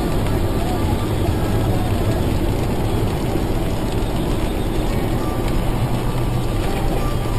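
Steady road noise inside a car driving fast on a rain-soaked highway: tyres hissing through water, with engine and rain noise underneath.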